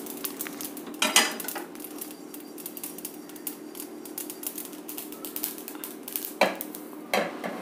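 A steel spoon scraping and clinking against a kadai as poppy seeds are stirred while dry-roasting, with a few louder knocks about a second in and near the end, when the pan is tipped to empty the seeds into a mixer jar.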